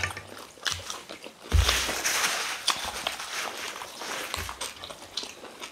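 Meal-table handling noises: a few light clicks, a dull thump about a second and a half in, then a rustling hiss that fades over about two seconds, with scattered small clicks as food is handled.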